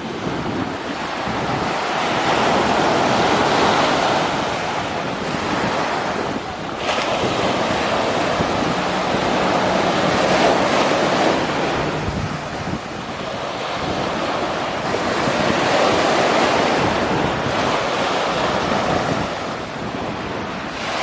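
Sea waves washing in on the shore, the surf swelling and easing every few seconds, with wind buffeting the microphone.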